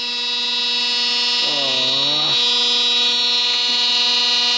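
Spindle of a Makera Carvera Air desktop CNC mill spinning free, not cutting: a steady high whine made of several held tones, left running even though the stop button on top of the machine was pressed. About a second and a half in, a person briefly murmurs.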